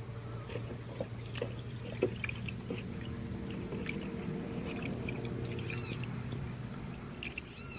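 A hand stirring and scooping water and swelling water-absorbing polymer gel in a plastic bucket, with small splashes and drips as it runs back off the fingers, over a steady low hum.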